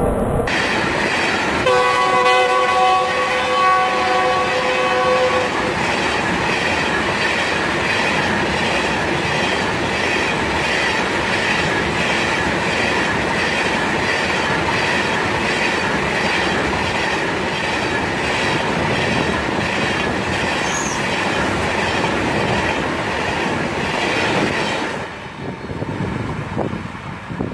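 Loaded coal hopper wagons of a fast freight train rushing past, their wheels clattering over the rail joints in a steady, even rhythm. The locomotives' multi-tone horn sounds for about four seconds near the start. Near the end the last wagon passes and the clatter falls away.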